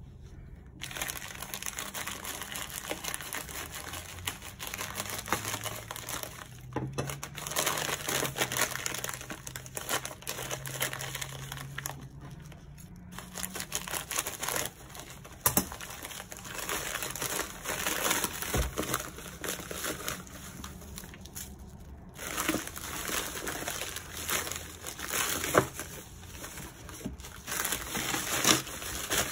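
Plastic poly mailer crinkling and rustling as it is handled, cut open with scissors and pulled off a boxed item. The crackling is irregular, with a few short pauses and some sharp clicks.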